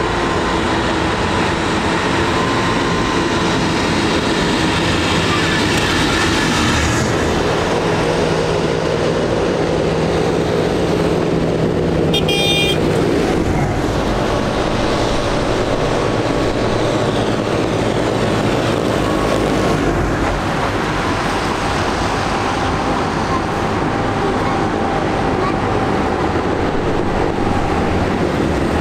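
Diesel tractor engines running as a line of tractors drives up the road, mixed with passing car traffic. A short, high-pitched horn toot sounds about twelve seconds in.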